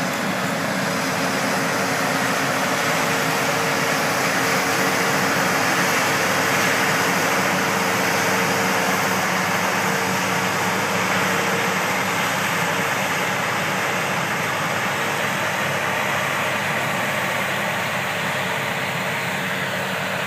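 A self-propelled forage harvester chopping maize, with the tractor hauling the silage trailer alongside: a steady heavy machinery drone with a held hum. It eases slightly in the second half as the machines move away.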